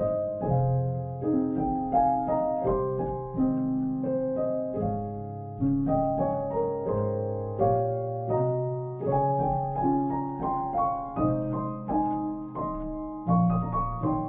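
Instrumental background music: a calm melody of piano notes, each struck and then fading, following one another every half second or so.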